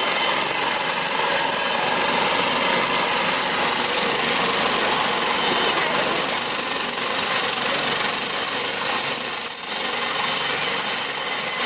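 Pawan Hans Eurocopter AS365 Dauphin helicopter running on the ground with its rotor turning: loud, steady engine and rotor noise with a constant high-pitched whine on top.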